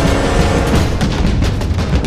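Loud background music with dense, rapid drum hits over a deep, steady low end.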